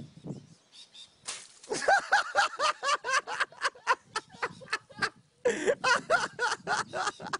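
A short rushing burst about a second in, then a person laughing hard in rapid, high-pitched bursts of about four a second. The laughter breaks off briefly about two-thirds of the way through, then starts again.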